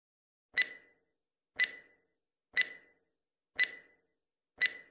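Countdown-timer sound effect: five short, sharp clock ticks, one each second, each with a brief ringing note.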